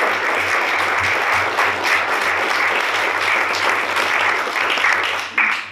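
Audience applauding: a roomful of people clapping steadily, which dies away suddenly near the end.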